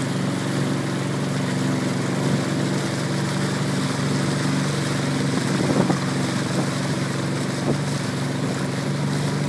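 Boat engine running steadily, a low even drone with a constant rushing noise over it.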